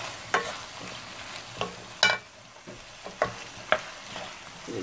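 Spatula scraping and knocking against a pan while minced lamb and potato chunks are stirred, over a low frying sizzle. About five sharp scrapes come at uneven intervals; the loudest is about two seconds in.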